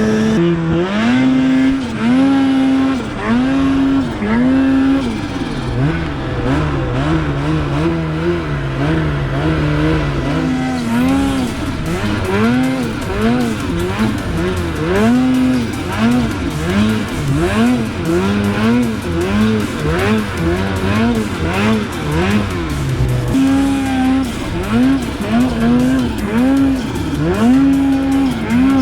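Two-stroke snowmobile engine revving up and down over and over as the throttle is worked, its pitch rising and dropping in quick swells.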